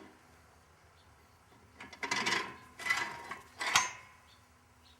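Steel parts of a Ringmaster tire-mounting tool clanking and rattling as the push bar is fitted onto it in the wheel: three bouts of metal-on-metal knocks, beginning about two seconds in, the last a sharp clang.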